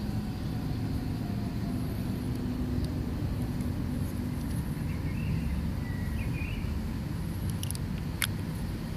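Steady low rumble of distant engine noise, with a few sharp clicks near the end from the hand-held camera's lens mechanism.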